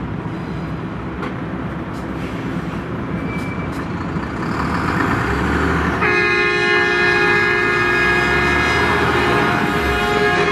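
A diesel lorry approaches and drives across a level crossing with a low engine rumble that grows louder. About six seconds in, a locomotive air horn, most likely a GE 65-ton switcher's, starts and holds one long, steady multi-tone blast that is still sounding at the end.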